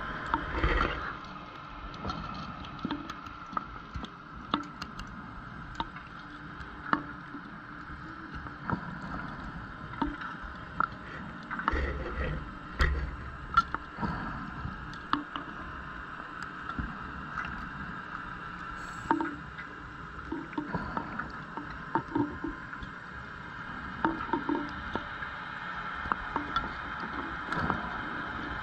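Underwater ambience picked up by a diver's camera: a steady high-pitched hum with scattered sharp clicks and a few short low rumbles.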